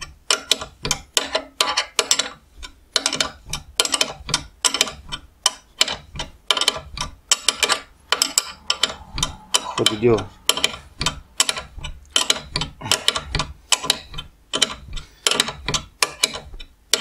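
Rapid, uneven metallic clicking, several a second, as a wrench turns the nut of an eccentric bearing puller held in a vise. This is the ball bearing clicking as it is drawn out of a Buran snowmobile's suspension arm.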